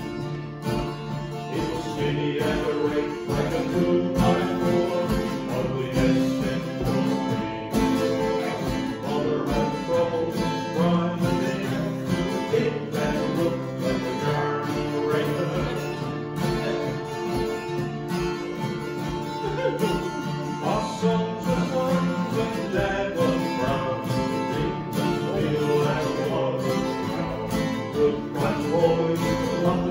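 Live music: two acoustic guitars strummed together in a steady rhythm, playing a song accompaniment.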